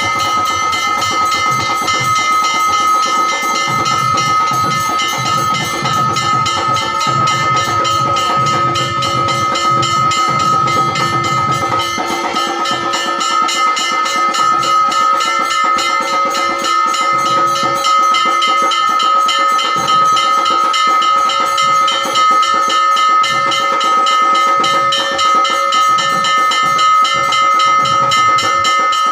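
Temple ritual percussion: rapid, steady drumming with ringing metal percussion over a constant high ringing tone. The low drum strokes thin out after about twelve seconds.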